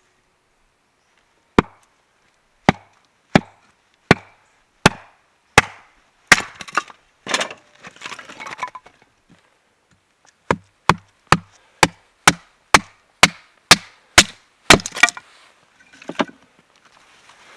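Firewood being chopped and split with a blade: a run of sharp wooden knocks about one every 0.7 s, then cracking and splintering as the wood parts, then a faster run of knocks about two a second.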